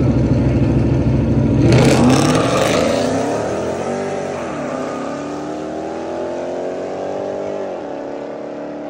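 Street-race cars launching from a standing start, with a burst of noise about two seconds in. Their engines then rev up through the gears, pitch climbing and dropping back at each shift, and fade as the cars pull away down the road.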